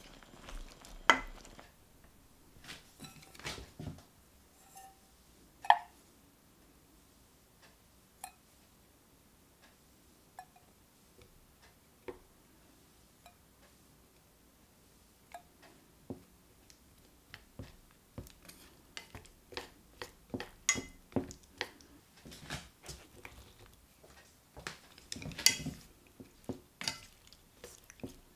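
Cooking utensils tapping, knocking and clinking against a stainless steel pan while a creamy chicken and chorizo sauce is stirred. Scattered sharp taps come first, then a quieter stretch in the middle, then a busier run of knocks and clinks in the last dozen seconds.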